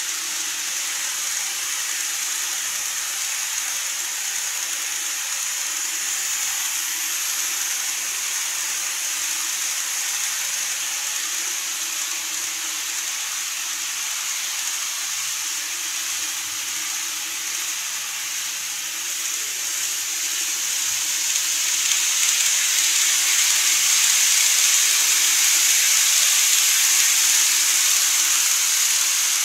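Model electric train (a Microace N-gauge Odakyu 60000 MSE) running on the layout's track: a steady high hiss of wheels and motor. It grows louder about two-thirds of the way through as the train comes round the curve and passes.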